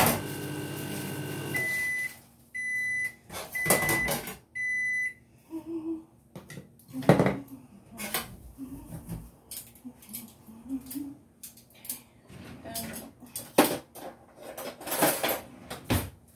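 A microwave oven runs with a steady hum that stops about a second and a half in, then beeps four times, about a second apart, to signal the end of its cycle. After that come scattered clinks and clatter of metal cutlery on a stainless-steel sink drainer.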